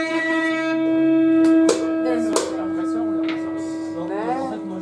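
Electric guitar holding one long sustained note, with two sharp pick or string clicks partway through and a wavering bend near the end.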